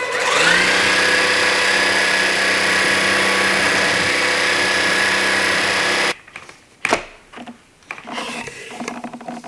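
Levoit LVAC-200 cordless stick vacuum switched on: its motor whine rises as it spins up, runs steadily for about six seconds, then cuts off suddenly as it is switched off. Light clicks and handling noises follow.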